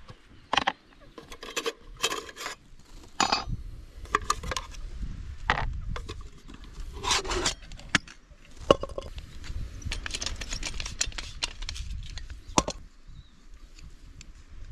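Cooking gear being handled: a string of short clinks, knocks and scrapes of pans, dishes and utensils, made while setting up to crumb and fry fish.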